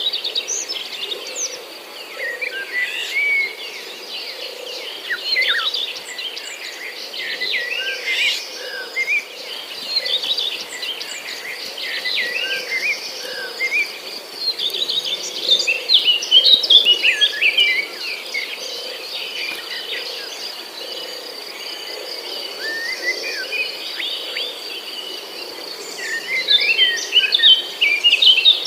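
Small songbirds chirping and twittering in overlapping bursts of short, quick notes, over a steady high-pitched insect drone.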